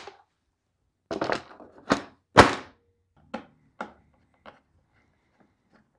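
Hard plastic top cover of a DeWalt DW735 thickness planer being set down and seated on the housing. A cluster of thunks comes about a second in, with the loudest knock a little after two seconds, then three lighter knocks.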